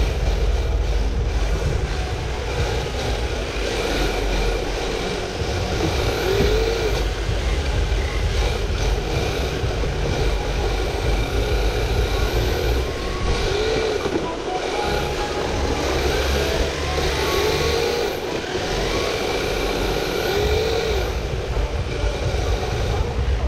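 Onboard sound of an RC drift car sliding and rolling across a tiled hall floor: a steady low rumble and hiss from its wheels and drivetrain, with a few short rising-and-falling tones.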